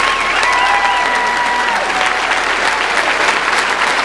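Church concert audience applauding, with dense, steady clapping. In the first two seconds a voice holds a long call over the clapping.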